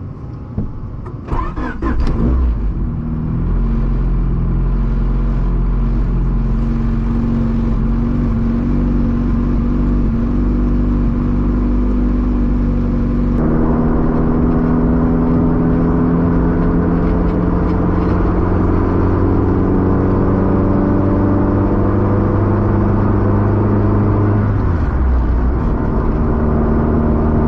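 Honda hatchback's engine and road noise heard from inside a cabin that has no sound deadening yet. The engine note builds over the first couple of seconds as the car pulls away, gets louder about halfway through, and its pitch climbs steadily under acceleration before changing near the end.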